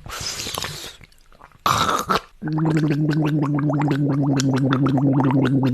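A person snoring: breathy snorts, then about two and a half seconds in a long, steady, pitched snore with a rapid gargling rattle.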